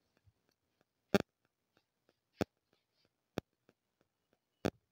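A few short, sharp clicks and taps about a second apart, with near silence between them.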